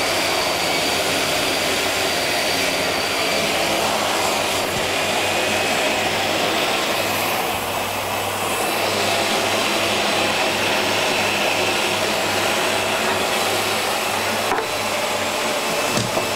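Electric food processor running steadily, its blade pureeing pumpkin pieces into a smooth puree.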